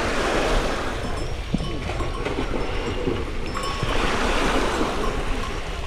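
Small sea waves washing onto a pebble beach, surging near the start and again about four seconds in, with wind buffeting the microphone.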